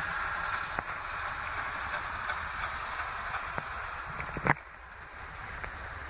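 Steady blizzard noise: wind and blowing snow hissing on the phone's microphone. There are a few small clicks and one sharp knock about four and a half seconds in, after which the noise is a little quieter.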